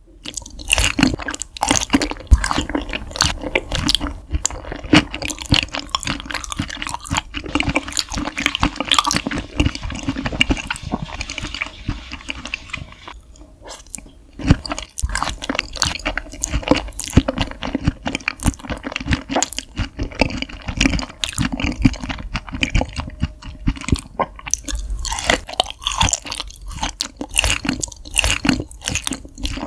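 Close-miked chewing of raw beef spinal cord: wet, squishy mouth sounds with many small clicks, from meat soft like pudding and chewy like jelly. There is a short pause about halfway.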